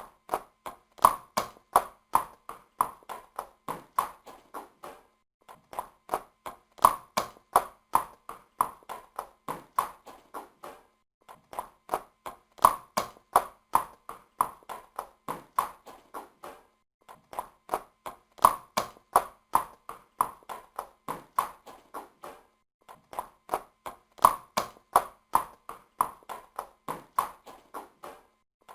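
Horse hoofbeats at a run: rapid, sharp hoof strikes, several a second, that start loud and fade away. The same run of strikes repeats about every five and a half seconds, with short gaps between passes.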